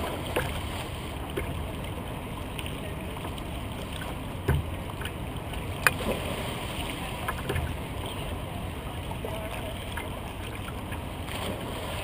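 Water lapping and sloshing around a kayak on open river water, with a low thump about four and a half seconds in and a sharp knock near six seconds.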